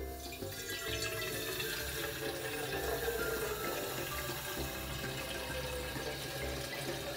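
Water running with a steady rush, over soft ukulele background music.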